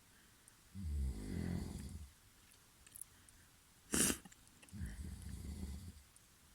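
A sleeping person snoring: two low, rattling snores, each about a second long, about four seconds apart. A short, sharp breath noise comes just before the second snore.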